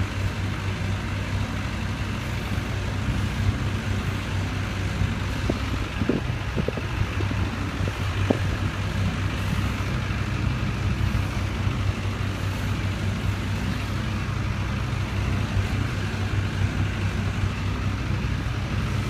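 Steady low mechanical hum with a constant noisy rush over it, from a turning children's fairground ride, heard from on board.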